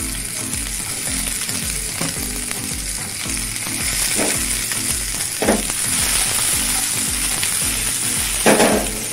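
Mushrooms, garlic and sliced bell peppers sizzling in olive oil in a non-stick frying pan, with a steady hiss and the scrape of a wooden spatula stirring them. A louder scrape comes near the end as the pan is shaken to toss the vegetables.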